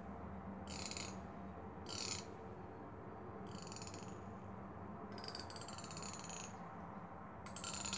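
The teeth of a plastic comb strummed with a thumb, giving short rasping zips about five times at uneven gaps, one drawn out for over a second. A steady low hum runs underneath.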